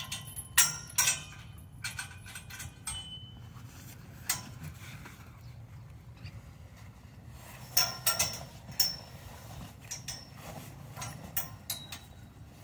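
Metal buckles and clasps of a horse blanket clinking as the blanket is unfastened and pulled off a horse: scattered sharp metallic clinks with short rings, two near the start and a cluster about eight seconds in.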